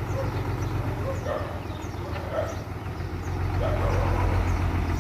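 Heavy diesel earthmoving engine running steadily, louder from about three and a half seconds in, with a dog barking repeatedly.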